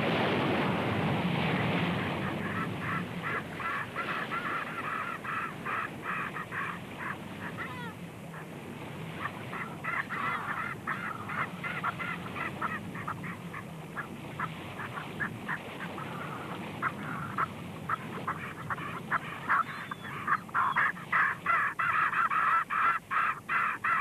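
Surf and splashing for the first couple of seconds, then a flock of seabirds calling again and again. The calls come in quick runs and are loudest near the end.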